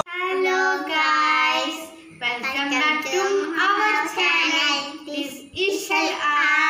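Young girls' high-pitched voices in a sing-song delivery, in phrases of one to two seconds with short breaks.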